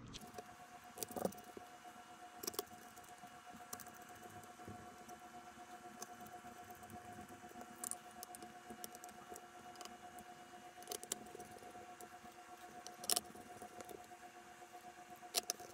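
Sparse small metallic clicks and taps from a precision screwdriver: its bit being swapped, then small Torx screws being driven into a graphics card. A faint steady tone sits underneath.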